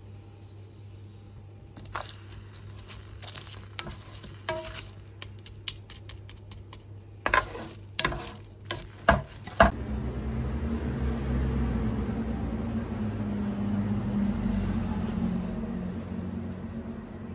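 A spatula stirring and scraping Brussels sprouts in a stainless steel frying pan, with a run of sharp clicks and knocks against the metal. Then a steady sizzle for about six seconds.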